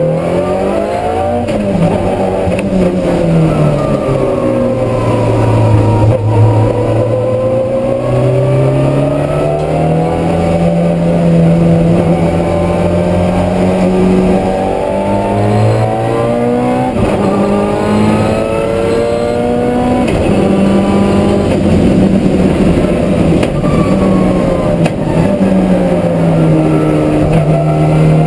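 Race car engine heard from inside the cockpit on a flying time-attack lap, its pitch climbing and dropping again and again as it accelerates, shifts and slows for corners.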